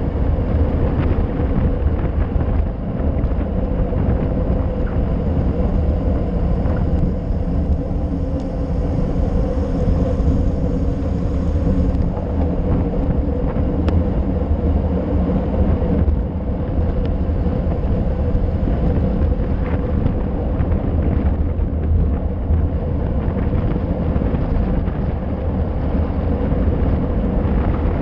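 Steady rush of wind on a handlebar-mounted action camera's microphone as a bicycle descends at speed, with the rumble of tyres on asphalt and a few faint knocks from the road.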